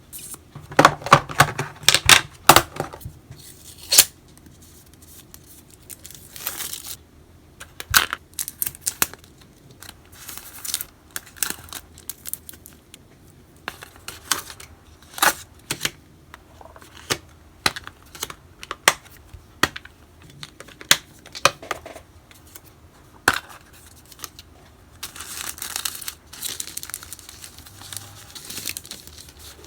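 Hands packing parcels: packaging crinkling and tearing, with frequent sharp clicks and taps, busiest in the first few seconds and rustling again near the end.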